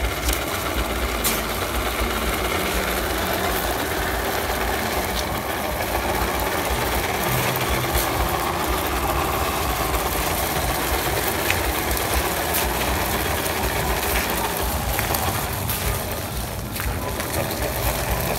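ZP1001 battery-powered RC crawler truck driving over dirt and gravel: a steady whirring of its electric motor and gears, with scattered small clicks.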